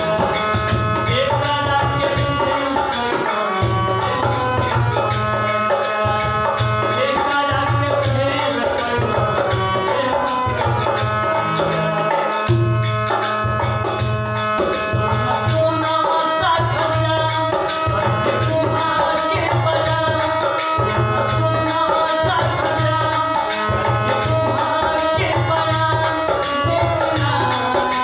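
Devotional bhajan music: harmonium holding sustained chords and melody over a steady, regular drum beat, with small hand-held percussion clicking in time.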